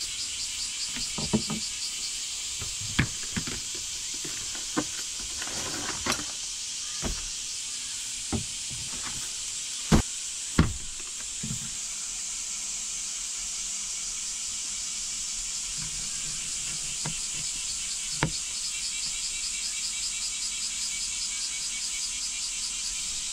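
Steady high chirring of insects with a fast, even pulsing. Over the first dozen seconds, scattered knocks and clicks of things being handled and set down, the loudest about ten seconds in.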